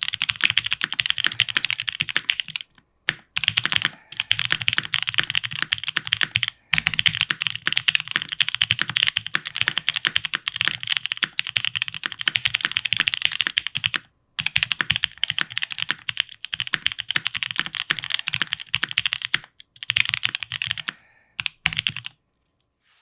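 Fast, continuous typing on a plateless 7V mechanical keyboard with lubed Black Cherry Pie linear switches and GMK ABS keycaps: rapid key strokes with brief pauses about three, six and a half and fourteen seconds in. The typing stops shortly before the end.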